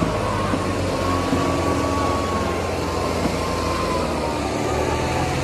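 Kubota and New Holland 5501 tractors' diesel engines running hard under full load, pulling against each other in a tug-of-war. A steady high whine sounds over the engine noise throughout.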